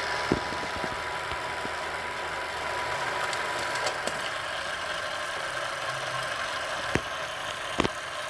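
Arriflex 35mm film camera running with film threaded through it: a steady mechanical whirr of the motor and film movement with a thin steady whine, and a few sharp clicks, two of them near the end. It runs fairly quietly, which the operator takes as a sign the film is threaded correctly.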